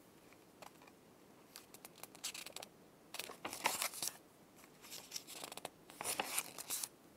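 Pages of a bound paper booklet being turned by hand: a few short, faint paper rustles and swishes, about three in all.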